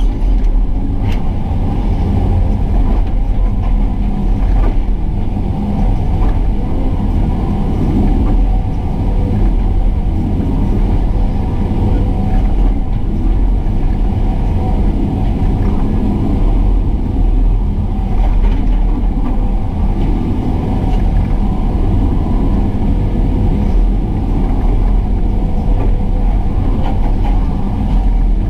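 Excavator's diesel engine running steadily with a loud low rumble, with a few faint knocks.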